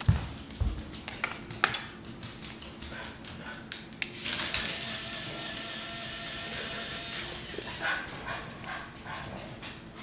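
Scattered clicks and taps, a dog's claws on a hardwood floor. Then a steady whirring hiss for about four seconds from the small electric motor of a remote-control toy skunk driving across the floor, which stops a couple of seconds before the end.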